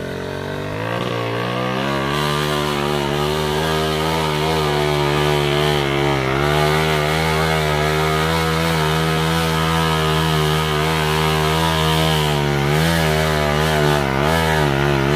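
Small motorcycle engine running hard at high revs while hauling two heavy logs up a dirt track. The revs climb over the first two seconds, then hold steady, with brief dips in the middle and near the end.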